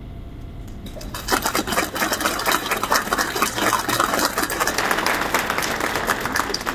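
Audience applauding, a dense patter of many hands clapping that starts about a second in and dies away near the end.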